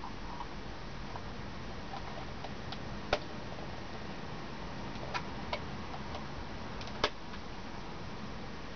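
Sharp clicks as a portable rechargeable LED floodlight is handled and worked with the fingers: four in all, the loudest about three and seven seconds in, over a steady low hiss.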